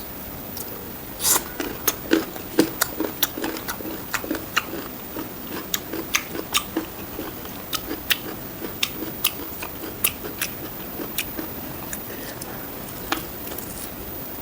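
Close-up eating sounds of a mouthful of fried pork and rice being chewed: a run of sharp, wet mouth clicks and smacks, about two or three a second, over soft chewing.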